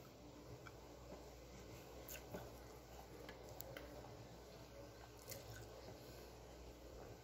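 Faint chewing of a person eating, with a few soft, brief clicks scattered through.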